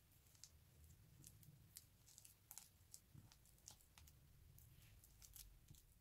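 Faint, irregular crackles and soft crunches of fingers crumbling and squeezing the white powdery filling of a cut-open stress ball.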